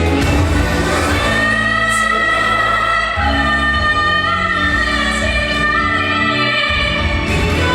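Music: a female singer holds long, slowly bending notes over a band accompaniment with a steady bass.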